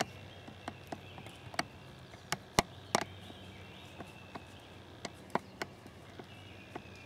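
Yearling whitetail deer walking through dry leaf litter: irregular crunching footsteps in the leaves, the loudest a few sharp cracks about two and a half to three seconds in.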